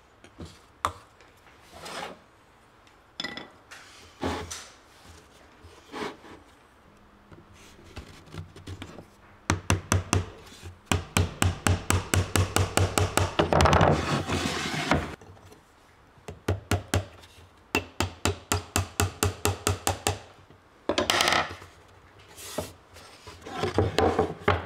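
Small hammer tapping thin nails into the side of a wooden box frame to fix its panel: scattered single taps, then two runs of quick light blows at about five a second. Between the runs the wooden box is rubbed and shifted on the workbench.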